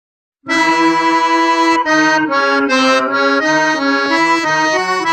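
Cumbia music starts about half a second in, with an accordion playing the melody over a bass line.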